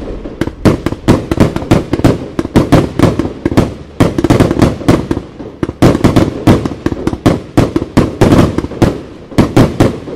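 Red Wire 'Ghost Machine' 100-shot firework cake firing in rapid succession, about four to five loud shots and bursts a second, stopping near the end.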